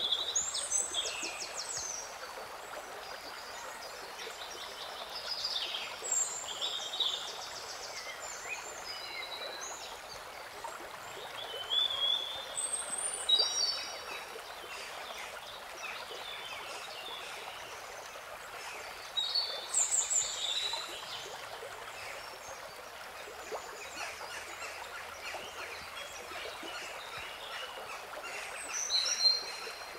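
Birds chirping in short bursts of quick, gliding calls every few seconds over a steady rushing hiss.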